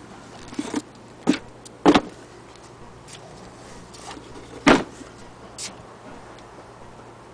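A few scattered knocks and clicks from handling, with two louder thumps about two seconds in and just under five seconds in, and small clicks between them.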